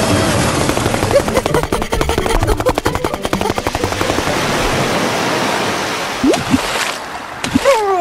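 Cartoon sound effect of a rushing surge of water: a loud, steady wash with a fast rattle through its middle. It thins out near the end, where a few short falling tones sound.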